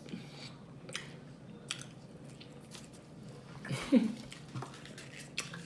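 Quiet eating sounds: chewing close to the microphone, with a few light clicks and a short vocal sound, falling in pitch, about four seconds in.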